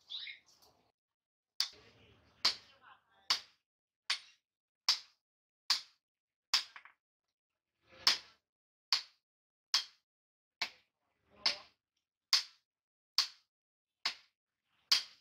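Hand hammer striking a red-hot steel chopper blade on an anvil, forging it: sixteen sharp, evenly paced blows, a little over one a second, with a short pause about halfway.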